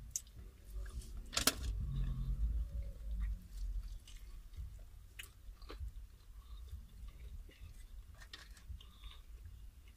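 Close-up chewing and biting into crispy fried chicken wings: scattered crunches and mouth clicks, the sharpest crunch about a second and a half in.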